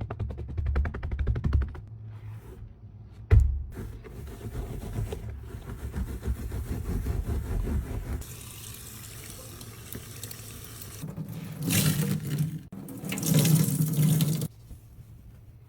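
Stainless kitchen sink being cleaned with dish soap: rapid scrubbing strokes, a sharp knock about three seconds in, then the tap running in two loud bursts near the end to rinse the sink.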